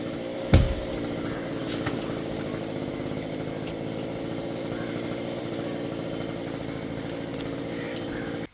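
Chainsaw engine running steadily at a low, even speed rather than cutting, with one heavy thump about half a second in.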